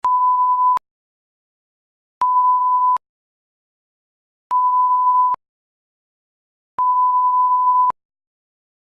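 Simulated control-panel buzzer sounding four times: a steady single-pitch beep of about a second each, cut on and off with a click, roughly every two and a quarter seconds, as the PLC ladder program switches the buzzer output on and off.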